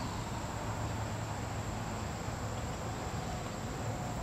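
Steady outdoor background noise with no distinct events: a constant thin high insect-like whine over a low steady hum.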